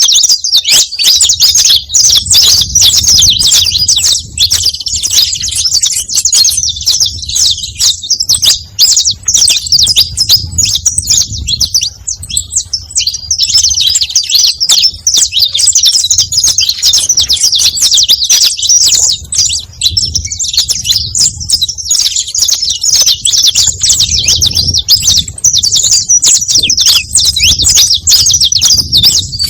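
Saffron finch (canário-da-terra) singing: a dense, continuous run of rapid high chirps and trills, with a low rumble underneath.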